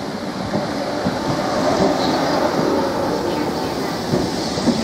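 Electric multiple-unit train moving through the station: a steady rumble of wheels and running gear with occasional knocks, growing slightly louder.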